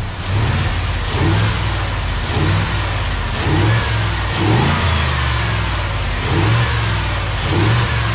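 Ford F-250 Super Duty pickup's V8 engine revving and pulling hard, loud and continuous with repeated swells in pitch.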